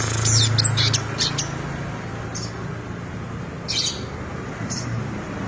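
Long-tailed shrike (cendet) singing: a quick run of high chirps in the first second and a half, then a few single sharp notes spaced out, over a steady low hum.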